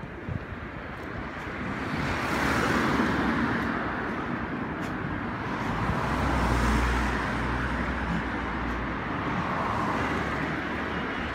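Road traffic: cars passing one after another on the road alongside, the tyre and engine noise swelling and fading about three times, with a low engine rumble loudest about midway.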